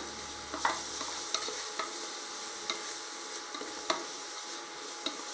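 Onion, tomato and ground-spice masala sizzling in hot oil in a pot while it is stirred, with a steady frying hiss and a spoon knocking against the pot about six times.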